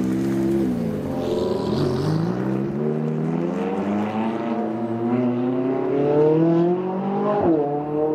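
McLaren 570S's twin-turbo V8 accelerating past and away. The engine pitch dips briefly about a second in, then climbs steadily for several seconds, drops sharply at an upshift near the end and starts climbing again.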